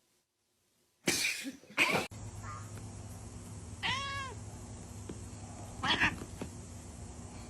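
A cat meows once, a short call that rises and falls in pitch, about four seconds in. It follows two louder brief noisy bursts about a second in, and another short noisy burst comes about six seconds in.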